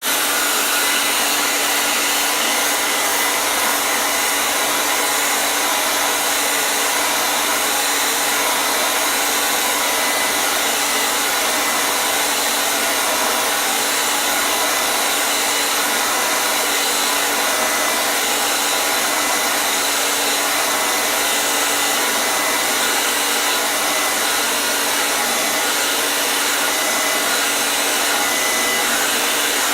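Hair dryer running continuously: a steady, even rush of airflow with a faint constant motor hum beneath it.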